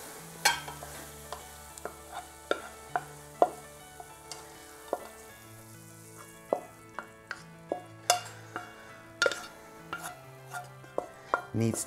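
Wooden spatula scraping and knocking against a nonstick frying pan as cooked paneer bhurji is scraped out onto a plate: irregular sharp taps and scrapes. A faint sizzle from the still-hot pan fades out about halfway through, under soft background music.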